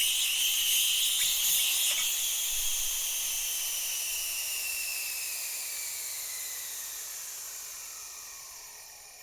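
Air rushing back into an evacuated vacuum chamber: a loud hiss that fades steadily, with a whistle inside it that falls in pitch as the pressure evens out.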